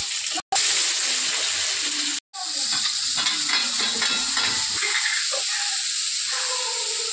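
Chopped onion and tomato sizzling as they fry in a hot kadhai (Indian wok): a steady hiss, broken twice by split-second gaps in the first few seconds.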